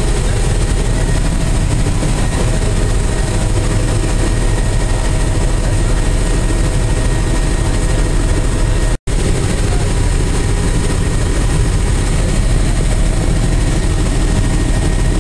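Helicopter engine and rotor noise heard from inside the cabin: a loud, steady drone that cuts out for an instant about nine seconds in.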